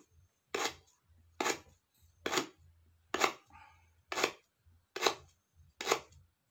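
Knife chopping a lemongrass stalk in seven even strokes, a little under a second apart.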